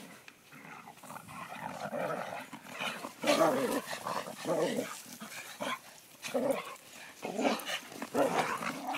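Dogs growling and barking in rough play: short repeated bursts, getting louder from about three seconds in.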